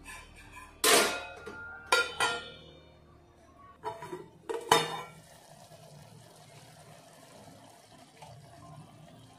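Metal kitchenware clanking: about six sharp, ringing knocks in the first five seconds as a steel plate and utensils are handled around the stone cooking pot. A faint steady hiss follows from the steaming curry.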